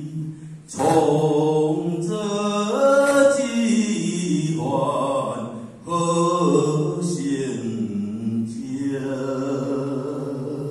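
A man singing a religious song (道歌) in Taiwanese Hokkien through a hand-held microphone, in slow drawn-out phrases with long held notes that slide in pitch and short breaths between them.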